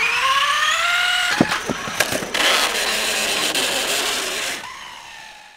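Electric drive motor of a space-elevator climber robot whining and rising in pitch as it spins up, then a few sharp clicks and a rattling, scraping noise as the climber runs into trouble on its tether.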